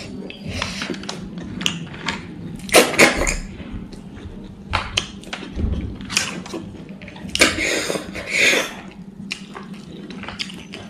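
Close-miked eating sounds: wet chewing and mouth noises with small clicks, and fingers working rice against a steel plate. Two louder noisy stretches come about three seconds in and around eight seconds in.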